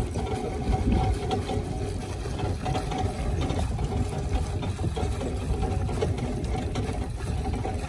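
A small engine running steadily at idle.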